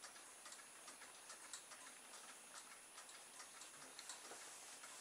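Near silence, with faint ticking about two or three times a second.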